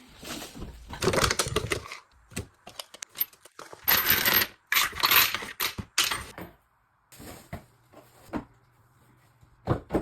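Hard household items clattering and clinking as they are picked up and set down while a kitchen countertop is cleared. The clatter comes in two busy stretches, at the start and again around the middle, with scattered sharp knocks and clicks between and after.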